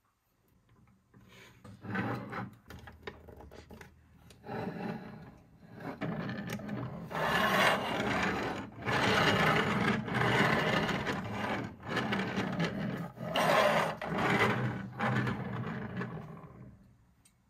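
Plastic wheels of a toy convertible car rolling back and forth on a tabletop: a rough rubbing rumble that swells and fades several times, loudest in the middle stretch.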